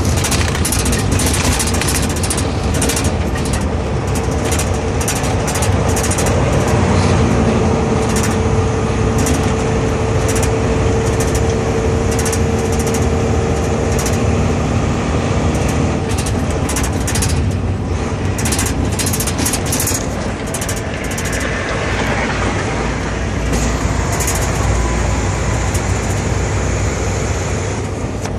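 Semi truck's diesel engine running under way, heard from inside the cab, with many rattles and clunks throughout. A steady whine stands out for several seconds in the middle.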